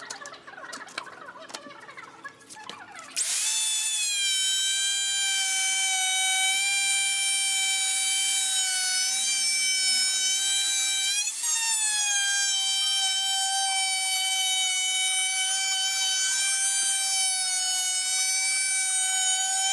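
Electric wood router starts about three seconds in and runs with a loud, steady high whine while cutting along the edge of a pine board. Its pitch dips briefly about halfway through and climbs straight back up. Before it starts there are a few light knocks as the board is positioned.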